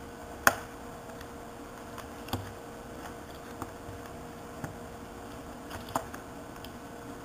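Small clicks and taps of iPod parts being handled as the battery is fitted into the case: one sharp click about half a second in, then a few fainter ones spread out, over a faint steady hum.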